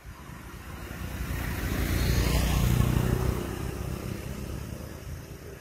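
A motor vehicle passing by, growing louder to a peak about halfway through and then fading away, its pitch dropping as it goes past.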